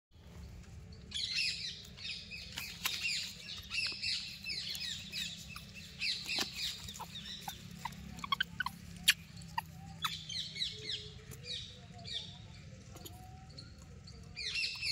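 Animal calls: rapid runs of high-pitched, downward-sliding chirps and squeals, dense for most of the first ten seconds, thinning out, then another burst near the end, with a few sharp clicks among them.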